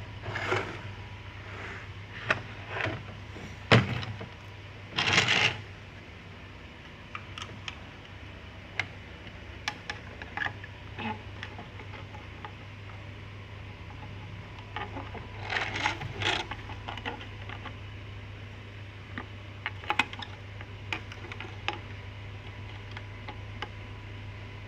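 Scattered clicks, knocks and rustles of metal parts, screws and tools being handled while an active subwoofer amplifier is put back together, with a steady low hum underneath. There are louder rustling bursts about five seconds in and again around sixteen seconds.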